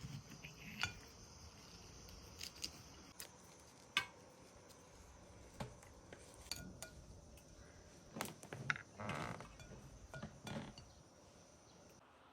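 Kitchenware being handled: scattered clinks and knocks of dishes, pots and utensils, with a short stretch of scraping and clattering near the end.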